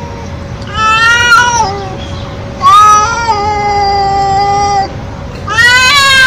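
A cat meowing loudly three times: a short call about a second in, a long one held steady for about two seconds, and another rising call near the end.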